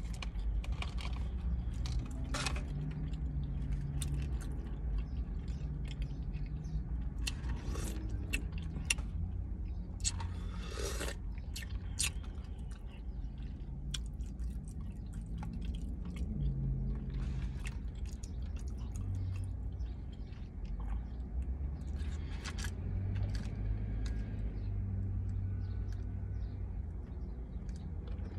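Chewing of a person eating tacos, close to the microphone, with scattered short clicks and crinkles. A steady low rumble of the car's interior runs underneath.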